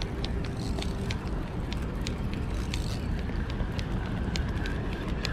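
Steady wind noise buffeting the microphone, with light, sharp ticks scattered irregularly through it.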